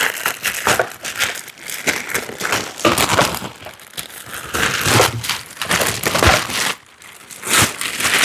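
Packaging being handled: plastic wrap and cardboard crinkling and rustling in irregular bursts as the air compressor is unpacked.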